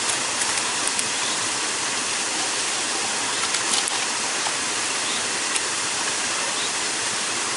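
Steady rush of river water tumbling near a waterfall, an even hiss throughout, with a few faint clicks on top.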